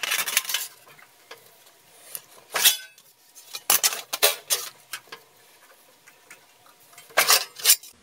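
Sheet-metal damper blank being handled and hand-bent at a box and pan brake: a string of light metallic clanks, scrapes and rattles, loudest about two and a half seconds in and again near the end.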